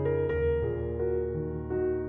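Background piano music, soft notes struck over sustained low bass tones.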